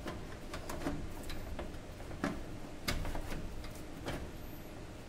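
Light metal clicks and knocks, about eight spread irregularly over a few seconds, as a desktop power supply unit is pushed and seated by hand into its sheet-steel PC case.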